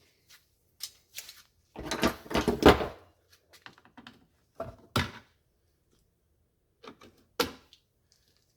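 Handling noises while working at a car's tail light: scattered clicks and knocks, with a louder stretch of rustling and clatter about two seconds in, and single sharp knocks near the middle and near the end.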